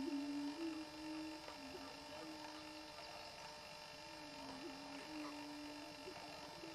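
Greater prairie chickens booming on the lek: a low, steady moaning hoot that runs almost without a break, stepping slightly up and down in pitch. Faint higher calls sound above it.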